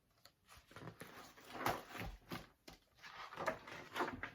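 Pages of a large picture book being handled and turned: two spells of papery rustling and swishing with a few soft knocks.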